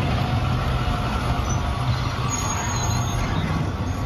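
A full-size yellow school bus driving past close by, its engine running steadily with a low hum and road noise.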